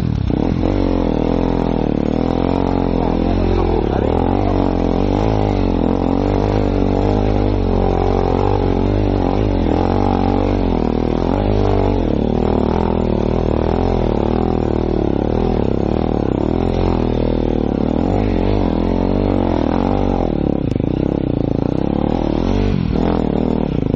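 Enduro motorcycle engine running continuously under the rider, its pitch rising and falling with the throttle while riding a rough dirt trail.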